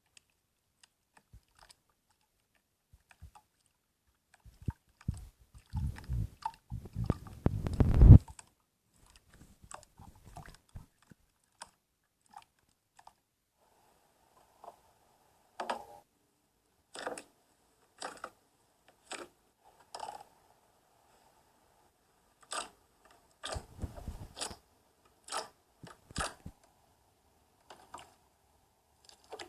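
Slime being squished and pressed, giving wet crackling and popping sounds. A dense run of loud crackles comes about five to eight seconds in, and later come separate sharp pops about once a second.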